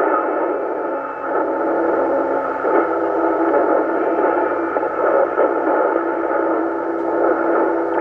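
FM radio receiver audio from the 27.405 MHz CB duplex repeater channel: steady hiss and hash with several steady whistling tones through it, a weak or noisy signal with no readable voice.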